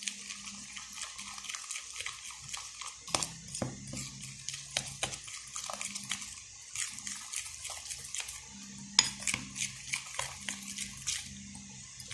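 A utensil stirring a wet batter of crispy-fry breading mix, flour and water in a bowl, with irregular clicks and scrapes against the bowl.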